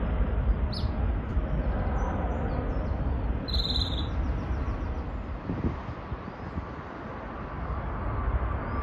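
Low rumble of a departing jet airliner's engines as it climbs away, fading over several seconds, with short bird chirps over it. Near the end the rumble swells again.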